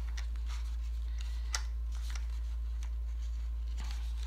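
Faint rustling and small clicks of cardstock and a metal split pin being fiddled by hand, with one sharper tick about a second and a half in, over a steady low hum.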